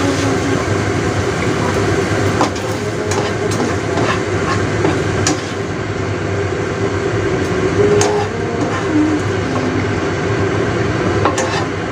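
Beef and shiitake mushrooms sizzling in a nonstick frying pan over a steady noise as a spatula tosses and scoops them, with several sharp clicks and scrapes of the spatula against the pan.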